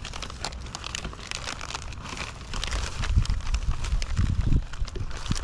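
Close handling noise of fishing bait and gear: crinkling and scattered clicks, joined from about three seconds in by repeated dull low knocks.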